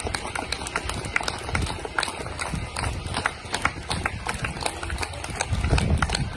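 Many people clapping and banging things at once: a dense, irregular run of sharp claps and clanks over low thumps, with a few voices.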